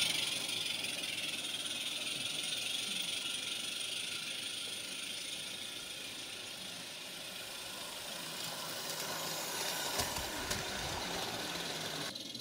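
Small 16mm-scale live-steam garden railway locomotive and its coaches running away from the listener: a steady hiss with light rattling of wheels on the track, slowly fading. A few low bumps come about ten seconds in.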